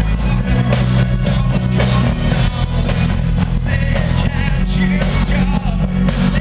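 Live rock band playing loud amplified music, with a male lead vocal and electric guitar over a heavy bass and drums.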